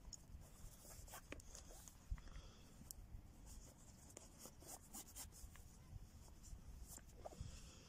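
Faint rubbing and small clicks of round bootlaces being pulled through the eyelets and hooks of hiking boots as they are laced up.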